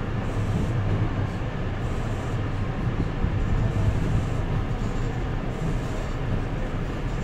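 Kobe City Subway Seishin-Yamate Line train running, heard from inside the carriage by the doors: a steady low rumble as it pulls out of a station and gathers speed.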